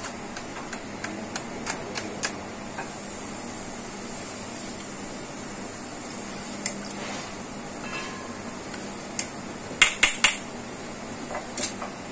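Steel kitchen knife clicking against the steel tin as it cuts through soft set pudding: a run of light taps in the first few seconds and a louder cluster of clinks near the end, over a steady background hum.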